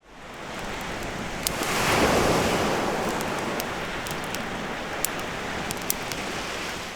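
Sea waves washing onto the shore. The sound fades in, one wave surges up about two seconds in and then eases back into a steady wash, with a few faint sharp clicks scattered through it.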